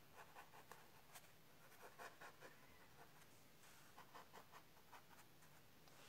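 Faint, soft strokes of a small brush rubbing over paper, blending colored pencil, in short irregular passes.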